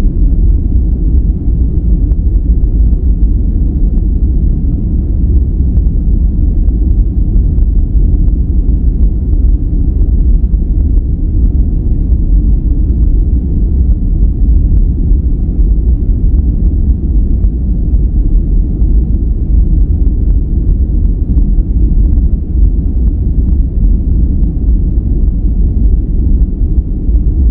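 Steady, unchanging synthetic sleep noise, deep and rumbling with little treble, closer to brown noise than to bright white noise.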